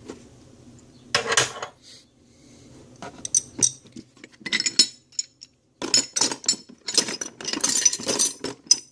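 Steel wrenches and other metal hand tools clinking and clattering against each other as they are rummaged through and pulled out of a plastic tool box. A burst of clatter about a second in, then more clinking over the second half.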